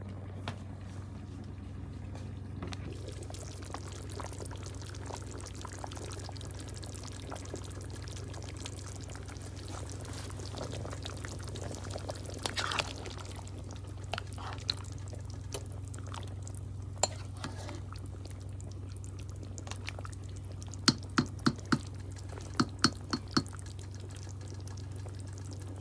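Liquid sloshing and a spoon stirring in a multi-cooker's pot of soup, with scattered sharp clicks and taps. Several come in quick succession near the end as the cooker's lid is handled, all over a steady low hum.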